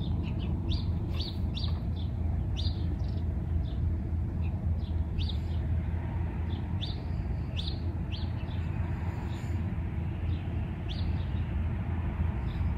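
Short high chirps from a small animal, roughly two or three a second and unevenly spaced, over a steady low rumble.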